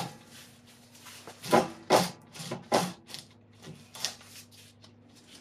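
Coil-spring compressors being tightened on a car strut with a long-handled ratchet: a sharp knock at the start, then a handful of short, irregular metallic clicks and scrapes.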